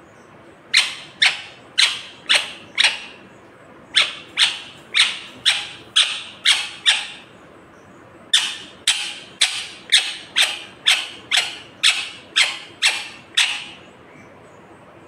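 Pet ring-necked parakeet giving loud, sharp, repeated squawks, about two a second, in three runs: five, then seven, then eleven.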